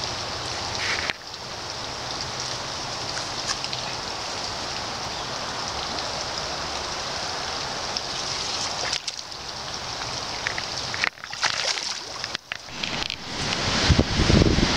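Steady rushing of a flowing creek. Near the end it gives way to louder wind buffeting the microphone.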